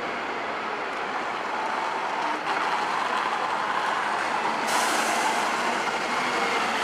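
City buses running as they pull through a bus station, a steady engine and road noise, with a sudden burst of compressed-air hiss from a bus's air brakes about two-thirds of the way through.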